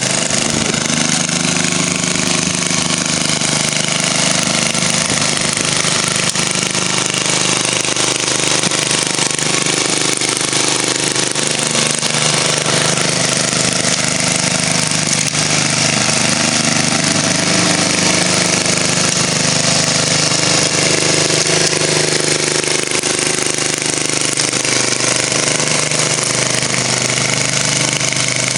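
Noma 5-23 snowblower's Tecumseh 5 HP engine running steadily under load as the machine throws snow.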